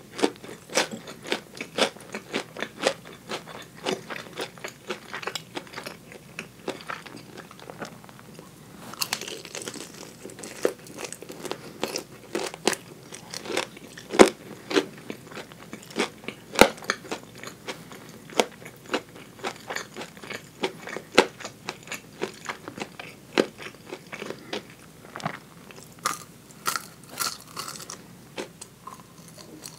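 Biting and chewing crispy fried chicken drumettes (tulip karaage), picked up close by a clip-on microphone: a steady run of short crunches, a few every second.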